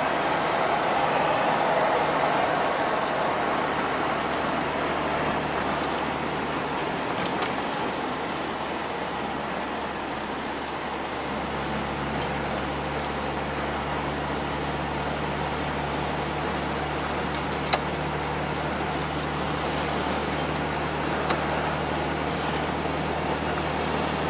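GAZelle light van driving at road speed, heard from inside the cab: steady engine hum and tyre and road noise. The low engine hum grows steadier and stronger about eleven seconds in, and two short clicks sound near the end.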